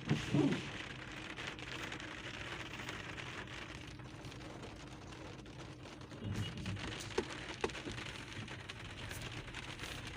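Steady, even hiss of outdoor background noise, with a few faint knocks and low rumbles about six to eight seconds in.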